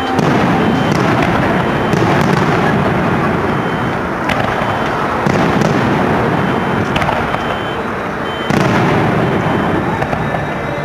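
Aerial fireworks shells bursting in a run of loud booms and crackles. Sudden blasts come right at the start, about five seconds in and again about three seconds later, each trailing off into a long rumble, with sharper cracks between them.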